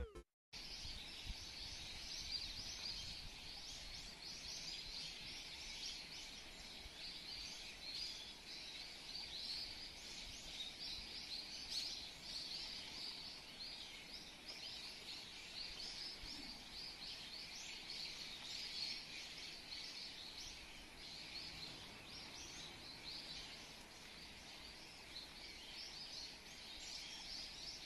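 Faint, continuous chirping of many small birds, a dense run of short high calls with no pause.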